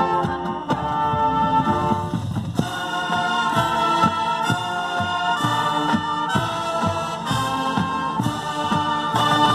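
Marching band playing: sustained wind-instrument chords over a regular drum beat.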